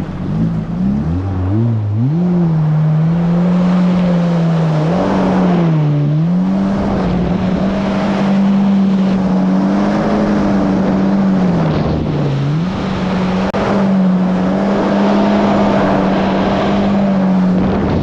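Yamaha GP1800R SVHO jet ski's supercharged four-cylinder engine accelerating hard, its pitch climbing over the first two seconds, then running at high speed with a steady drone over the rush of water spray. The pitch dips briefly twice, about six seconds in and again near twelve seconds.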